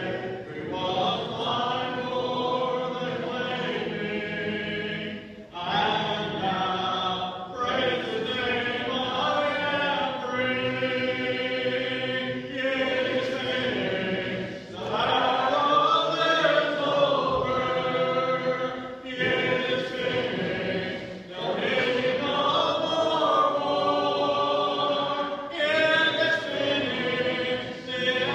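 Church congregation singing a hymn together a cappella, without instruments, in phrases a few seconds long with brief breaths between the lines.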